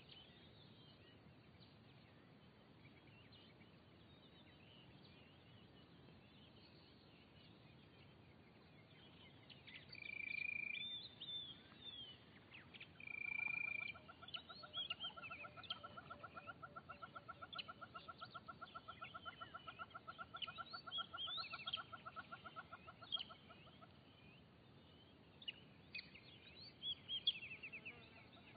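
Wild birds calling over a faint outdoor background. Two short clear whistles come about ten and thirteen seconds in, then a long rapid trill lasts about nine seconds, with scattered short chirps over it and on to the end.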